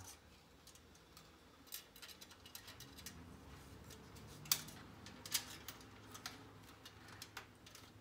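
Scattered light clicks and rattles of cables and plastic fittings being handled against the steel back of a PC case as a fan cable is routed and fastened, with two sharper clicks about halfway through.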